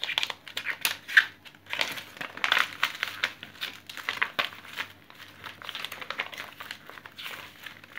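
Glossy magazine pages rustling and crinkling in irregular bursts as the magazine is opened and leafed through by hand.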